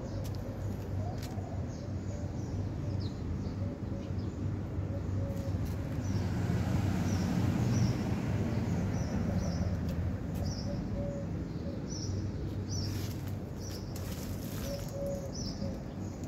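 Nissan 300ZX Twin Turbo's V6 idling, a steady low rumble that swells for a few seconds midway, with small birds chirping repeatedly.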